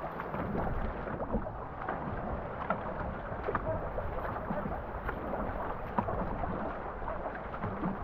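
Water rushing and splashing along a canoe's hull as two paddlers stroke, with scattered small knocks and drips from the paddles.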